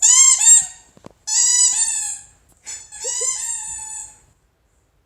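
Squeaky dog toy squeaking as a puppy chews it: one short squeak, then two longer drawn-out squeaks, each sagging in pitch at the end.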